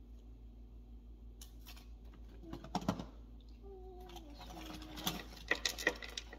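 Light clicks and taps from an eyeshadow palette and makeup brush, in two short clusters, with a faint wavering low tone between them over a steady low hum.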